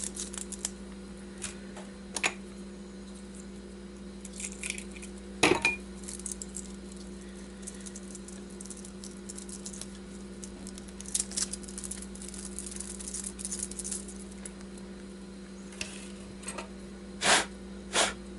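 Thin copper magnet wire being unwound by hand from a transformer: scattered light metallic clinks and rustling, with a few sharper knocks, the loudest about five seconds in and two near the end, over a steady low hum.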